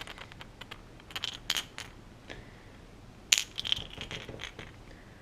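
Heddon One Knocker Spook topwater lure being shaken, its single loose rattle ball knocking inside the hollow plastic body in scattered sharp clicks, the loudest about three seconds in.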